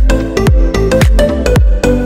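Electronic dance music with a heavy, deep kick drum beat, about two kicks a second, under a repeating melody.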